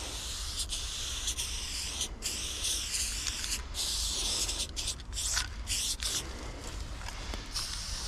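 Aerosol spray-paint can hissing as black lines are sprayed, in a run of long bursts with several brief stops where the nozzle is let go between strokes.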